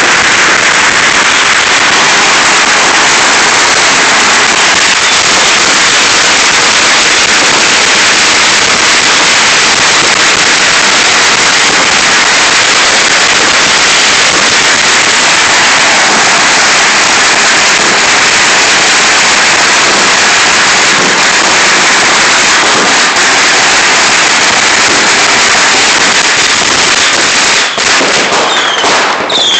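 Fireworks and firecrackers going off in a loud, dense, unbroken crackle of rapid pops and bangs, easing slightly near the end.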